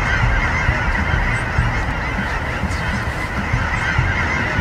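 A large flock of cackling geese calling: a dense, unbroken chorus of many overlapping honks and cackles.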